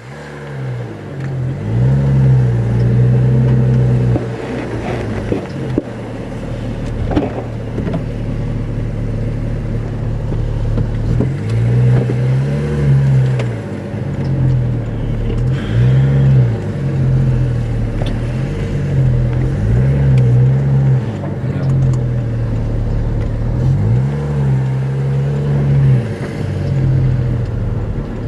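Porsche 991 GT3 RS's naturally aspirated 4.0-litre flat-six engine heard from the passenger seat, revving hard under acceleration and dropping back, its pitch rising and falling again and again.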